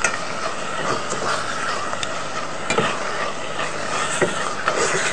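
Food sizzling in a hot pan while being stirred, with a few light clicks and scrapes of the spoon against the pan.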